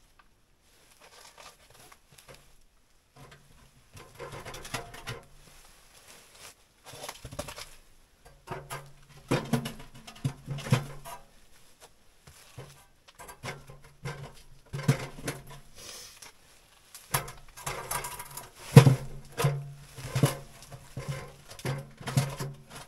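Fuel briquettes being laid by hand into a small tent stove: irregular knocks, clicks and rustling, busier in the last few seconds.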